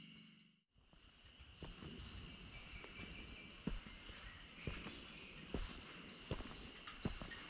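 Faint woodland ambience: a steady high insect drone with birds chirping over it, and scattered soft low thumps. A low hum fades out within the first second.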